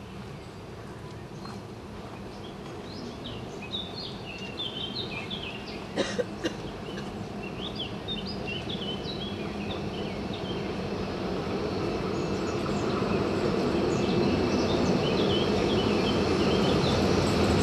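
A Siemens Taurus electric locomotive (class 1047) running toward the listener at the head of a passenger train, growing steadily louder as it nears. Birds chirp over it, and there are a couple of sharp knocks about six seconds in.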